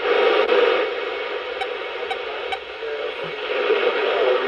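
Weather radio's small speaker hissing with steady static while tuned to a weather channel, with no clear broadcast voice coming through.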